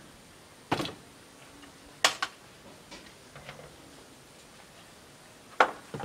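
A few sharp, irregular knocks and clacks from building work on a wooden shed: a loud one about a second in, a quick double knock at about two seconds, a few light taps, and another loud knock near the end.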